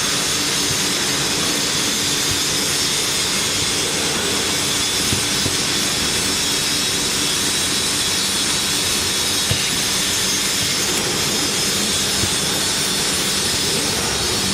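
Factory machinery running steadily: a continuous whir with several steady high tones over a low hum, and a few faint clicks.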